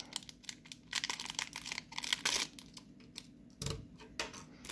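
Cellophane wrapper being peeled off a stack of trading cards, crinkling and crackling in several short bursts of small sharp crackles.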